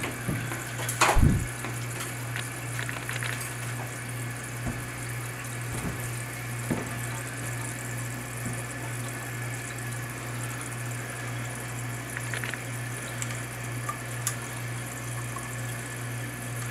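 Toilet tank refilling: a steady hiss of water running in through the fill valve, with a low steady hum under it. A few sharp knocks, the loudest about a second in and another near seven seconds in.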